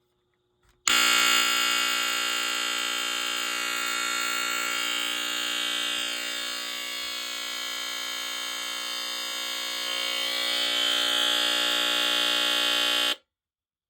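NuTone S-190 hardwired smoke alarm's horn sounding on test: one continuous, steady buzzy tone with many overtones. It starts about a second in and cuts off suddenly near the end.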